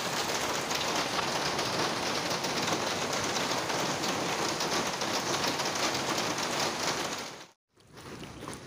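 Steady heavy rain falling on wet paving and puddles. After a short break near the end it comes back quieter, with separate drops splashing into a puddle.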